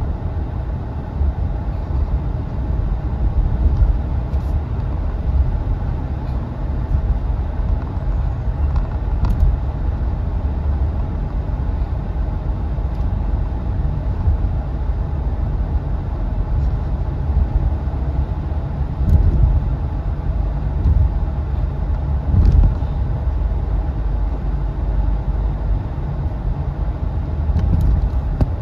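Car driving on the road: a steady low rumble of engine and tyre noise, with a few brief louder bumps.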